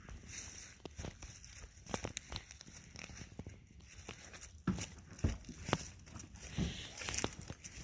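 Irregular crinkling and crunching clicks, with a few louder low knocks about halfway through.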